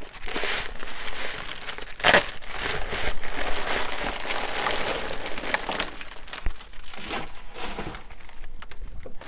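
Bubble wrap crinkling and crackling as it is pulled open by hand, with one loud sharp crack about two seconds in.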